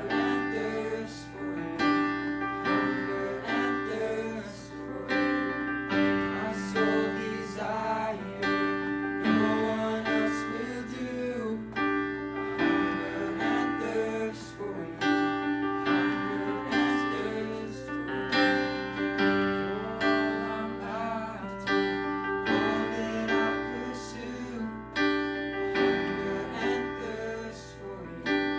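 Piano music: a run of struck chords and notes, each ringing on.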